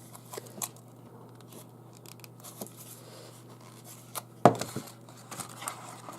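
Packaging being handled and opened by hand: scattered small clicks and taps, one sharp knock about four and a half seconds in, then crinkling and rustling near the end.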